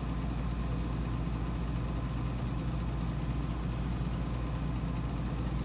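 A steady low mechanical hum with an even hiss behind it and no distinct events.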